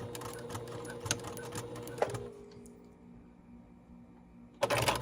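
Sewing machine stitching a zipper into a hoodie, a steady hum with regular needle clicks, stopping with a click about two seconds in; a short burst of handling noise near the end.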